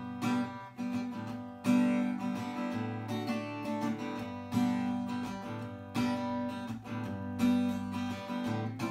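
Background music of a simple acoustic guitar strumming chords, a new strum about every one and a half seconds.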